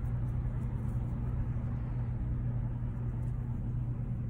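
A steady low hum over a faint hiss, unchanging throughout.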